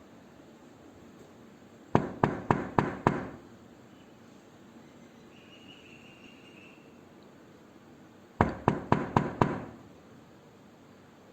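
Knocking on a door: two rounds of five quick, sharp knocks about six seconds apart, each knock dying away briefly.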